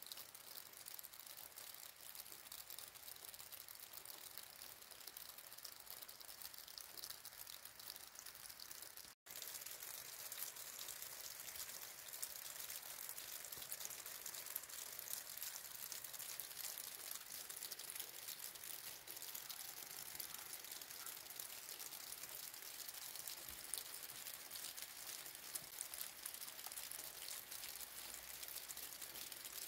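Steady rain falling on wet pavement, a soft hiss with many small drops pattering. It cuts out for an instant about nine seconds in and comes back slightly louder.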